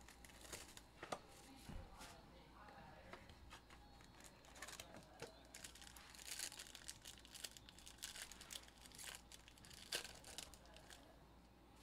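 Faint crinkling and tearing of a foil trading-card pack wrapper being pulled open by hand, with small clicks from the card box being handled. The rustling is thickest from about the middle to near the end.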